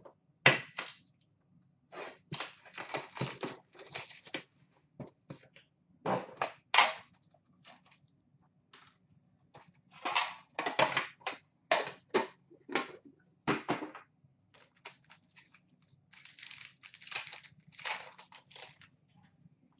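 Upper Deck hockey card packs being torn open from their tin, the wrappers crinkling in irregular rustling bursts, with the cards handled in between.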